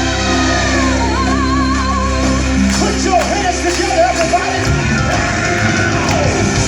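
Recorded song: a singer holds long notes with a wide vibrato over sustained band backing with bass, the bass dropping out about two-thirds of the way in.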